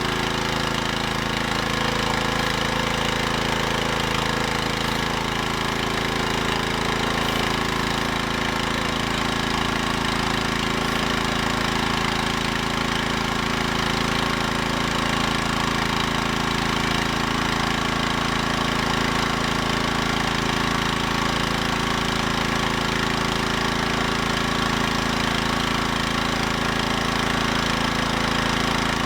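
Husqvarna PW3400 gas pressure washer engine running steadily under load, with the hiss of high-pressure water from a Ryobi 15-inch surface cleaner's spinning spray bar.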